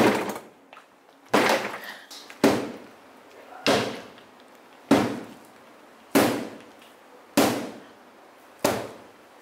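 Repeated heavy blows: eight sharp impacts at an even pace, about one every second and a quarter, each with a short ringing tail.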